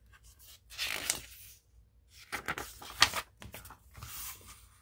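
A picture book's paper page being turned by hand: two rounds of paper rustling, with a sharp flap about three seconds in.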